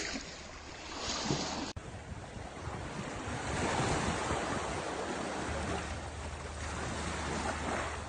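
Small waves washing onto a sandy shore, with wind buffeting the microphone.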